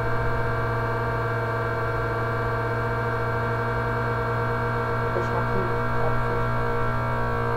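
Electric fan running with a loud, steady hum.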